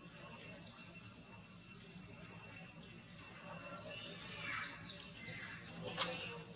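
Small birds chirping in the trees: a run of short, high chirps repeated over and over, growing denser and louder about four to six seconds in.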